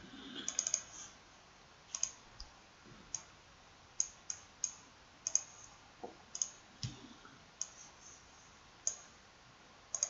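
Computer mouse clicking: about a dozen separate clicks spread unevenly, some in quick pairs. A couple of them are duller knocks.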